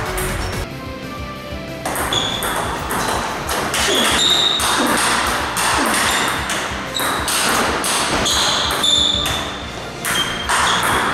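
Table tennis rallies: the celluloid-type ball clicking off rubber paddles and the table in quick succession, with a short pause between points about a second in, over background music.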